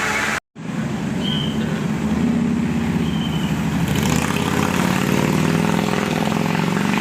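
A bus's diesel engine running steadily with a deep rumble, after the sound cuts out briefly near the start.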